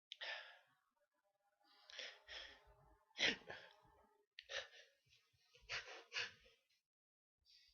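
A person's short, sharp breaths, about eight in a row with the loudest a little past three seconds in: the gasping of a sneezing fit.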